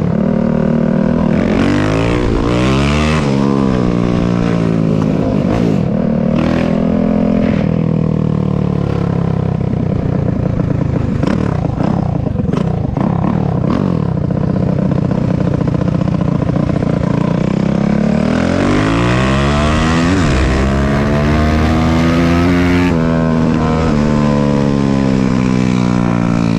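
Single-cylinder four-stroke dirt bike engine ridden hard, its pitch climbing and dropping at each gear change, then running steadily. About 18 seconds in it winds up again to high revs, holds, and eases off near the end.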